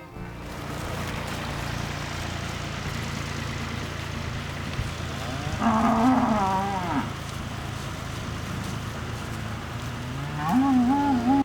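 Cattle mooing twice, a long wavering call about six seconds in and another near the end, over a tractor engine running steadily.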